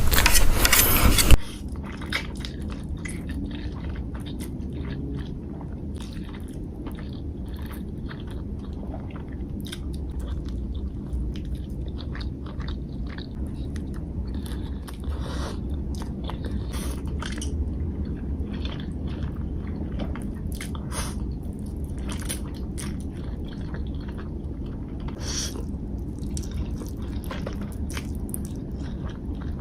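Close-miked eating sounds of a person chewing spicy instant noodles, with scattered wet mouth clicks and soft crackles. A louder, denser burst of sound comes in the first second and a half.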